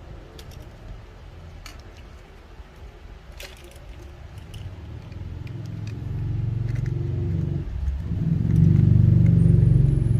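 A motor vehicle's engine rumbles past, growing steadily louder through the second half and loudest near the end. A few faint clicks come earlier.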